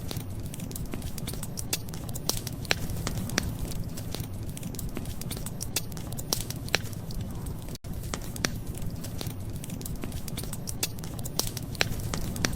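Wood fire crackling: irregular sharp pops and snaps over a steady low rumble. The sound drops out for an instant about eight seconds in.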